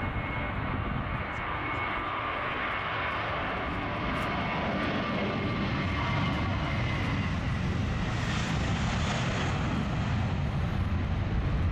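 Airbus A320-family twin-engine jetliner on its takeoff roll, its jet engines at takeoff thrust: a steady roar with a high whine in the first few seconds and a low rumble building and getting louder toward the end as the plane accelerates.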